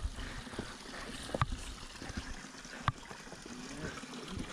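Hikers' footsteps along a forest trail and log, with a few sharp footfalls about a second and a half apart, over a faint steady trickle of creek water.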